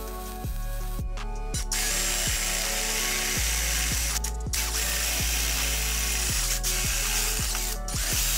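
Background music over the steady whir of a power drill boring through a steel square tube, with a brief pause about halfway through and a stop near the end. The MIG welding crackle carries over briefly at the start.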